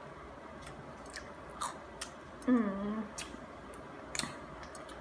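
Close-up chewing and small mouth clicks, with one short low-pitched burp about halfway through.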